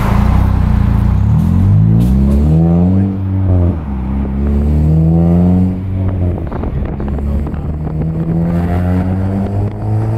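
Honda Civic Si with a K-Tuned exhaust, downpipe and cold-air intake, heard from inside the car as it accelerates: the exhaust note climbs in pitch and drops at a gear change about three and a half seconds in. It climbs again, shifts near six seconds, then settles into a steadier drone that slowly rises.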